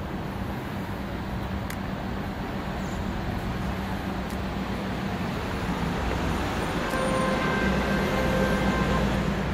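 Steady wash of city street traffic, growing slowly louder. A faint pitched tone comes in about seven seconds in and holds for about two seconds.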